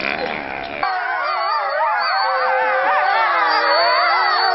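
Grey wolves howling in chorus: several long, wavering howls overlap at different pitches. About a second in, a low background rumble stops abruptly and the chorus comes through louder.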